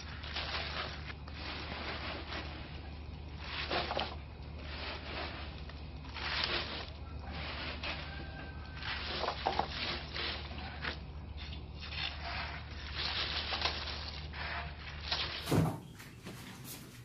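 Irregular bursts of rustling hiss as coarse salt is scattered over a basin of wet, cut cabbage greens, over a steady low hum. A single sharp thump near the end is the loudest sound.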